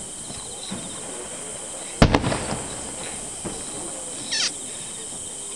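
Aerial firework shells bursting at a distance: one sharp boom about two seconds in with crackling after it, then a softer thump. A steady high hiss runs underneath, and a short falling chirp comes near the middle.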